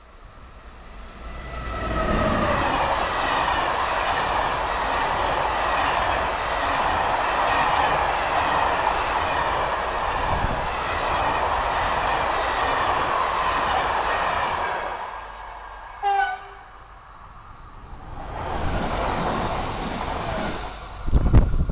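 SNCF BB 26000 'Sybic' electric locomotive and its Corail coaches passing at speed: the rush of wheels on rail builds and holds for about twelve seconds, then fades. A short horn blast sounds about sixteen seconds in, then a second train rushes past near the end.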